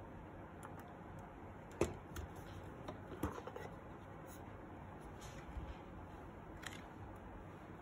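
Handling noise: a few sharp knocks and clicks as a Dahua VTO2202F-P door station is picked up and turned over on a wooden desk, the loudest knock about two seconds in, over faint room noise.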